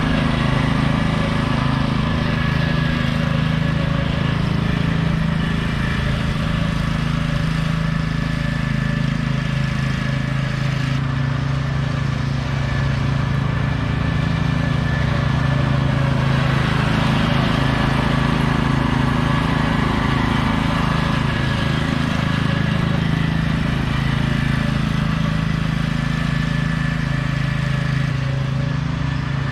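Troy-Bilt riding lawn mower engine running steadily with a constant low hum while the mower cuts grass.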